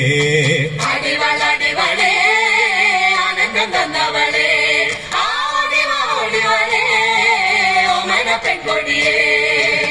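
A mixed group of men and women singing a Malayalam folk song (naadan pattu) together, with a brief break about five seconds in.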